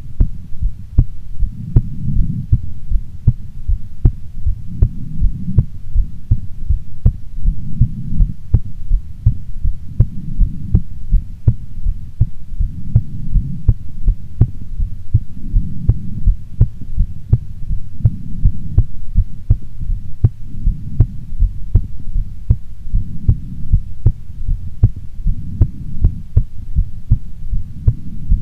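A woman's heartbeat picked up close to the body, beating evenly in a steady lub-dub rhythm. Under it a low rumble swells and fades every two to three seconds.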